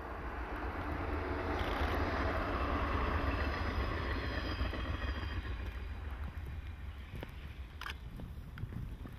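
A Shinano Railway electric multiple-unit train passing on snow-covered track: a rush of wheel and running noise that builds, is loudest a few seconds in as the train goes by, and then eases as it draws away. Under it runs a steady low rumble of wind on the microphone.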